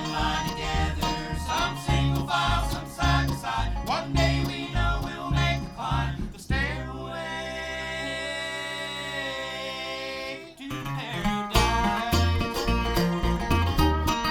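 Bluegrass band playing an instrumental break with banjo and guitar over a steady bass beat. About six seconds in the band breaks off into a long held chord, then the rhythm comes back in about five seconds later.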